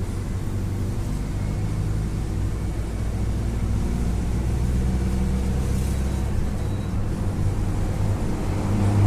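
Mercedes-Benz OF-1721 BlueTec 5 bus's four-cylinder diesel engine running steadily with a low rumble. It grows louder near the end.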